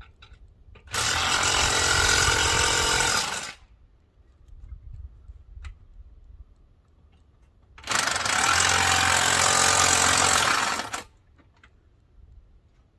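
Impact wrench (impact gun) hammering in two bursts of about three seconds each, roughly seven seconds apart, with faint clicks between.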